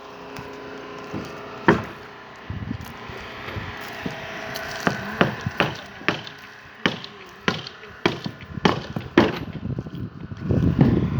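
Irregular sharp knocks of wood on wood, a single one about two seconds in and then a run of them about half a second apart, with a rougher, louder clatter of wood starting near the end.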